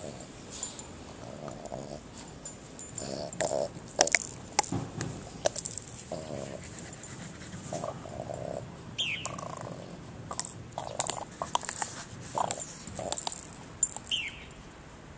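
Dogs at play, with a Bouvier des Flandres puppy among them, making short low vocal sounds again and again, mixed with scattered sharp clicks.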